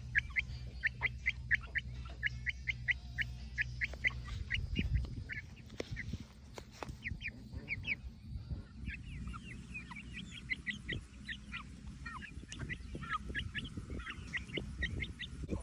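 A young chick peeping over and over, short high peeps at about four a second, with a low steady rumble beneath them for the first five seconds or so.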